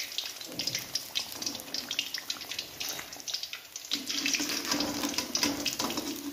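Fish pieces in a gram-flour (besan) masala batter sizzling and crackling in hot oil in a frying pan. A low steady hum joins about four seconds in.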